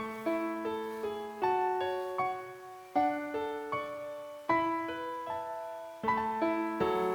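Background music: a gentle piano melody, notes struck in short phrases and left to ring.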